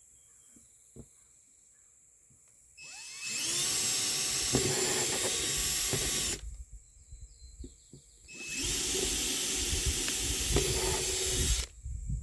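Handheld electric power tool run twice on the car's dash shell, each run about three seconds long, the motor whining up to speed at the start of each and then running steadily.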